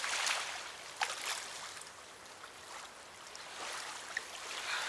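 River water flowing and lapping at the bank, a noisy rush that swells and eases, with a couple of short sharp clicks.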